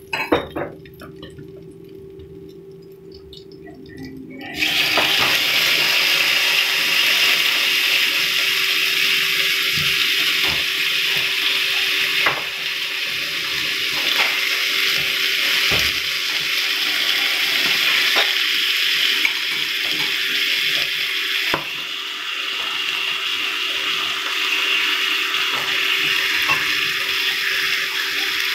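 Steak slices sizzling in hot oil in a frying pan. The loud steady hiss starts suddenly about four and a half seconds in, when the meat goes into the pan, with a few sharp clicks of the meat being handled over it.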